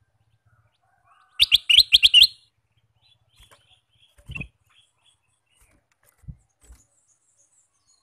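Ruby-throated bulbul (kutilang emas) giving a quick, loud phrase of about five sharp, chattering notes about a second and a half in, then a few soft calls. Low thumps follow as the bird hops about on its wooden cage perch.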